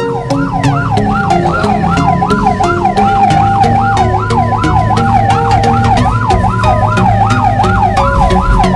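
Ambulance siren on a fast yelp, rising and falling about three times a second, with a steady note under it that switches between a higher and a lower pitch every couple of seconds, over low vehicle rumble.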